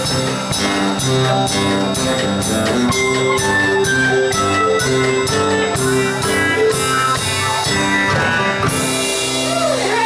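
Live band of electric guitars, bass guitar and drum kit playing the closing bars of a country song over a steady drum beat. About nine seconds in, the band hits a final chord with a cymbal crash and holds it.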